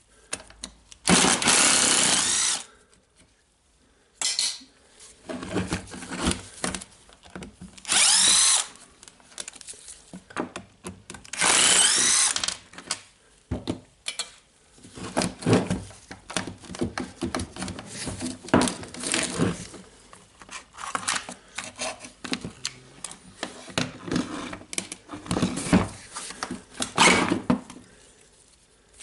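Power screwdriver or drill motor whirring in a few short bursts, its pitch sweeping up and down, during disassembly of an angle grinder to get its armature out. Many short clicks and knocks of metal and plastic parts being handled and tapped fill the rest.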